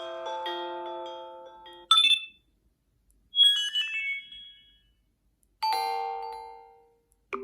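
A run of short HTC phone ringtone and notification chimes played one after another: a ringing chime melody that dies away just before two seconds in, a brief bright ping, a quick descending high jingle around three and a half seconds, and a lower chime near six seconds that fades out. Another tone starts right at the end.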